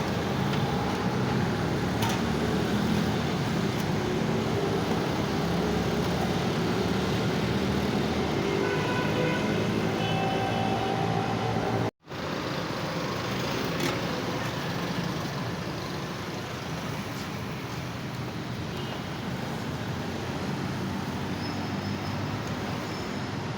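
Steady road traffic noise from passing vehicles. The sound drops out for an instant about halfway through.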